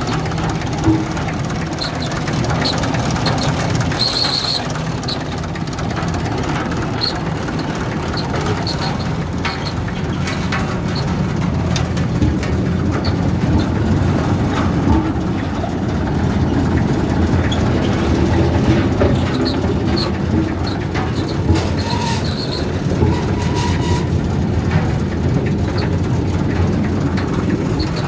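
Road roller's engine running steadily while the roller moves, with short high squeaks and clicks now and then.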